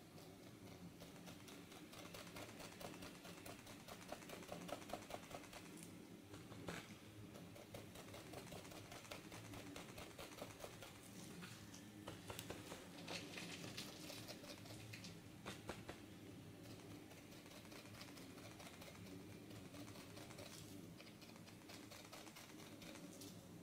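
Quiet, rapid light tapping of gloved fingertips dabbing paint onto a spray-painted board to texture white tree blossoms, over a faint steady hum.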